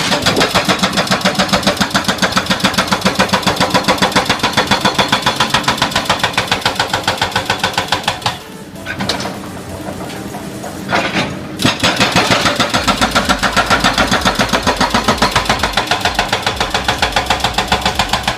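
Hydraulic hammer breaker on a backhoe excavator pounding in rapid, even strokes, about five or six blows a second. It stops for about three seconds midway, then starts hammering again.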